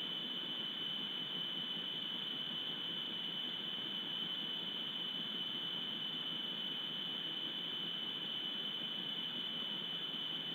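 Steady hiss with a constant high-pitched whine, unchanging throughout.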